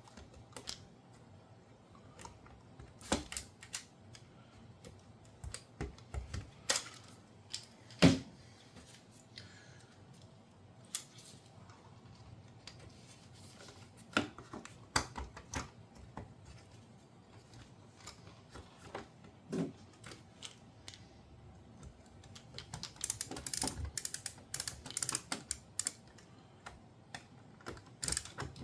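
Scattered clicks and knocks of a bracket, bolts and hand tools being handled and fitted on a dishwasher door, with one sharper knock about eight seconds in and a quick run of clicking near the end.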